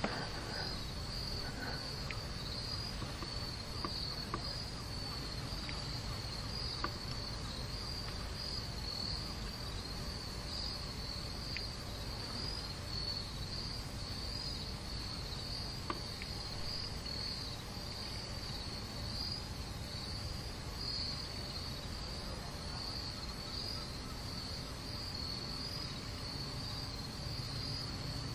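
A steady chorus of insects trilling, an evenly pulsing high-pitched sound, over a low background rumble.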